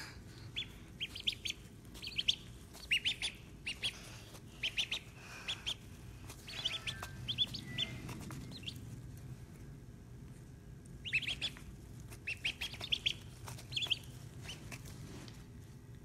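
Ducklings peeping: short, high chirps in quick runs of several at a time, with a pause of a couple of seconds about two thirds of the way through.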